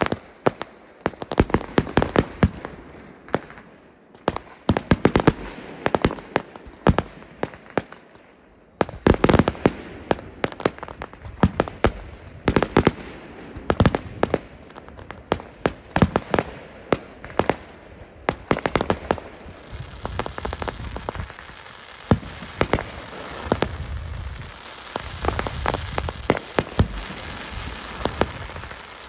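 Aerial fireworks display: quick bangs and pops of bursting shells, coming in clusters with a brief lull a little before the middle. In the last third the separate bangs give way to a dense, steady crackling under low rumbles.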